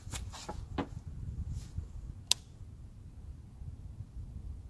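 Faint handling clicks from an AR-15 rifle held ready to fire, with one sharper click a little over two seconds in, over a low steady rumble.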